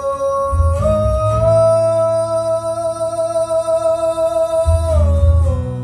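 Live male vocal holding one long high note over strummed acoustic guitar. The voice steps up in pitch about a second in, holds steady, then slides back down near the end.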